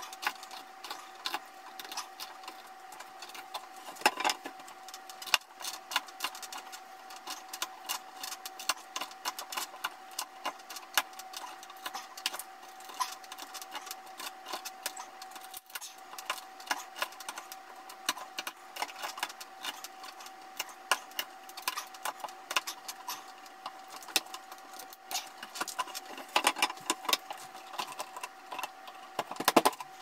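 A 1¼-inch spade bit turned by hand with a Leatherman Skeletool CX multitool, boring into a wooden board: a rapid, uneven run of clicks and scrapes as the bit cuts and the hex shank works in the driver. A steady faint high hum runs underneath.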